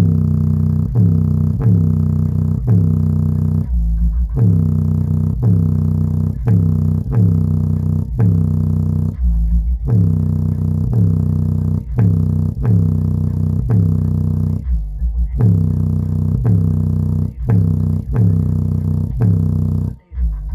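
Bass-heavy hip hop beat played loud through a Logitech Z623 subwoofer, its passive radiator driven to high excursion. Deep bass notes repeat about twice a second, and the music cuts out briefly near the end.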